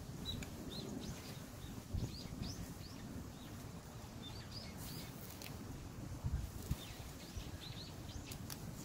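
Small birds chirping repeatedly in short high calls, over a faint low rumble, with a few soft knocks.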